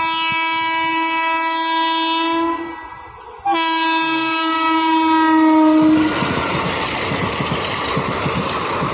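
Passenger train's locomotive sounding its horn in two long blasts, the second starting about three and a half seconds in, each dipping slightly in pitch as it ends. About six seconds in the horn stops and the coaches pass close by, giving a loud, steady noise of wheels on the rails.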